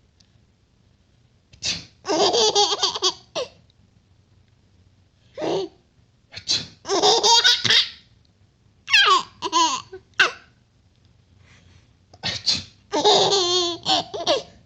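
A baby laughing in about four bursts. Each burst comes just after a short sharp burst that is the father's sneeze.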